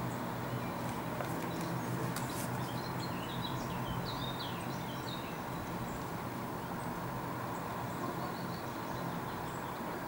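Small woodland birds chirping in short high notes over a steady low background rumble, with a few sharp taps about two seconds in.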